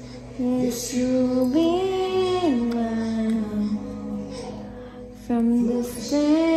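A slow song with a woman's voice singing long-held notes that glide from one pitch to the next.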